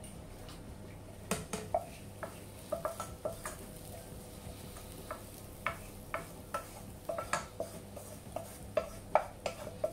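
Wooden spoon knocking and scraping against a non-stick frying pan, an irregular run of sharp taps, as sautéed green onions are scraped out of the pan.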